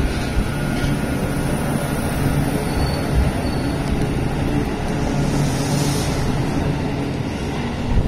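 JR West 221 series electric train pulling out of the platform and accelerating past and away, a steady, loud rumble of motors and wheels on the rails.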